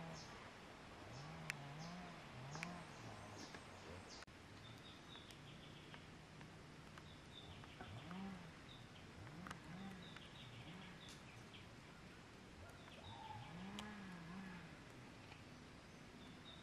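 Faint woodland ambience: birds chirping in short repeated series, with low calls that rise and fall over and over and a few sharp clicks.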